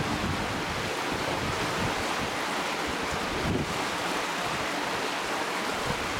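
Steady rush of river water, with gusts of wind buffeting the microphone.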